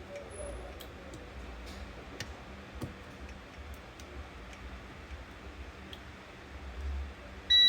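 Scattered light clicks and taps of small parts and tools being handled over a low hum, then a short, loud, high electronic beep near the end.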